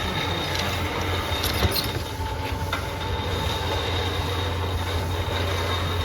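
Machinery running steadily, with a low hum and a thin, steady high-pitched whine.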